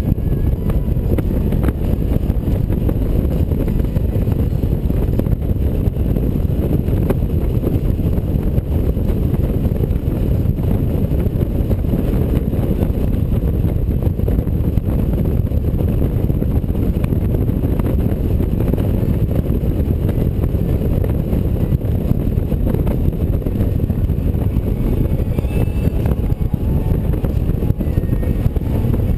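Riding a touring motorcycle at steady cruising speed: a constant low rumble of wind on the microphone mixed with road and engine noise, with no change in speed.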